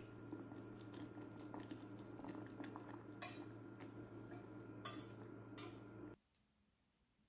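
Sugar syrup simmering with orange slices in a stainless steel saucepan, under a steady low hum. A wire whisk clinks and scrapes against the pot several times, loudest about three seconds and five seconds in. The sound cuts off about six seconds in.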